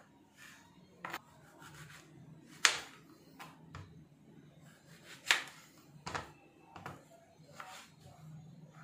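Knife knocking on a cutting board as fruit is chopped: a series of sharp, irregular taps roughly a second apart, two of them louder than the rest.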